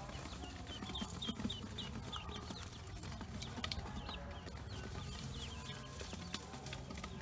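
A brood of newly hatched Pekin and black ducklings peeping: a fast run of short, high calls, several a second, overlapping from different birds.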